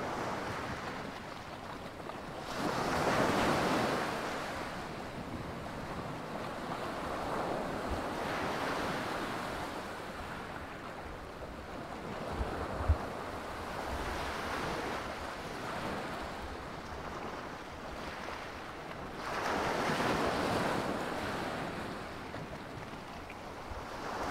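Sea waves breaking and washing up the shore, surging and fading every few seconds, with wind rumbling on the microphone. A short thump about halfway through.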